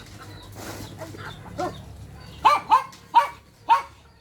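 A dog barking four times in quick succession, starting about halfway through.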